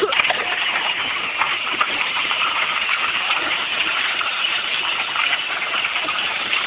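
Power Wheels toy truck rolling down a gravel driveway: a steady grainy crunching of its plastic wheels on the gravel, mixed with its electric drive running.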